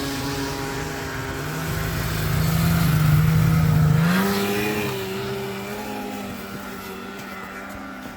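Snowmobile engines at full throttle in a race, loudest about three seconds in, with the engine pitch stepping up near four seconds and the sound fading away toward the end as the sleds pull off.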